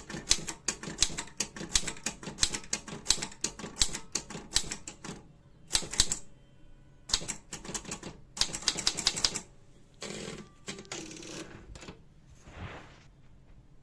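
Godrej Prima typewriter being typed on: rapid, uneven runs of sharp key strikes with short pauses between them. Near the end come a few longer, noisier sounds in place of the strikes.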